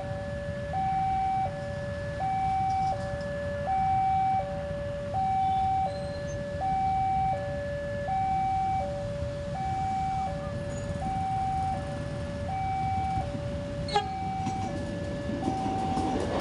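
Railroad level-crossing warning signal sounding an electronic two-tone alarm, alternating high and low notes of about three-quarters of a second each, over a steady low traffic rumble. A sharp click comes near the end, and then the rumble of an approaching passenger train rises as it reaches the crossing.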